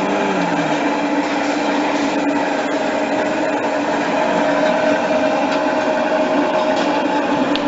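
LZ-107 glue-spreading machine running: its electric motor and glue rollers make a steady mechanical hum with a steady whine.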